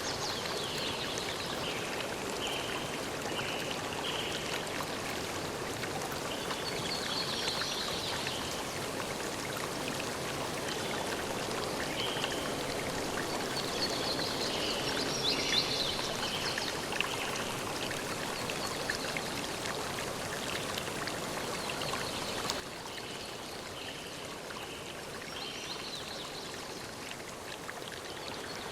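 River water flowing and rushing steadily, with short high chirps repeating over it. The water sound drops a little in level suddenly about three-quarters of the way through.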